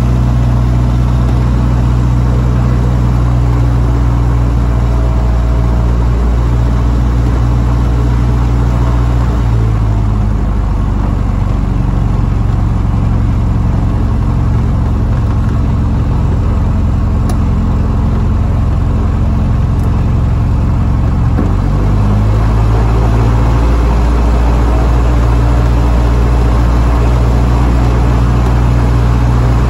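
Light aircraft's piston engine and propeller running steadily at run-up power. From about ten seconds in until about twenty-one seconds the note drops and turns uneven while the ignition is switched to a single magneto, then it steadies again on both. The engine is running rough during the run-up.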